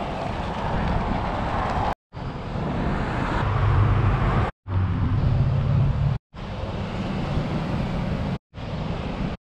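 Outdoor background noise cut into short clips, broken by four brief dropouts to silence. There is an even wash of wind and surf on a handheld action camera's microphone, and passing road traffic with a low engine hum around the middle.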